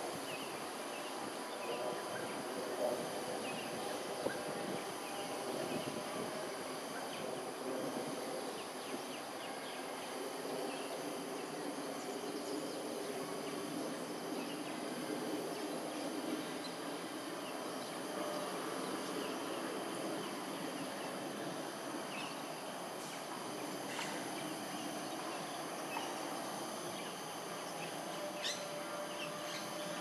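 Steady outdoor ambience by a canal: an even, high insect drone over a low, continuous hum, with a few faint short chirps.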